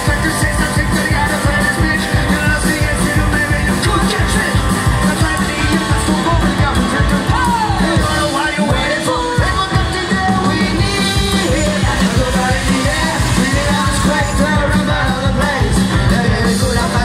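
A live rock band playing loudly, with male and female voices singing and shouting over drums and electric guitar on a steady beat. About halfway through, the bass and drums drop out for a moment under a sliding vocal line, then come back in.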